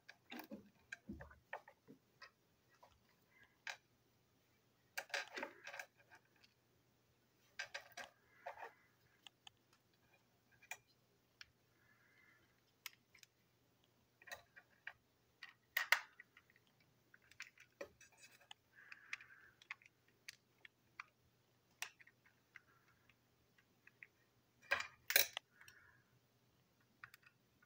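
Small plastic toy train parts being handled and fitted together by hand: scattered light clicks, taps and rustles, with a few sharper clacks, the loudest about sixteen and twenty-five seconds in.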